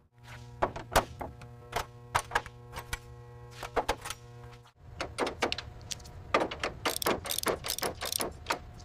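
A quick run of sharp clicks and knocks, many close together. For the first half they sit over a steady mechanical hum that stops about halfway through.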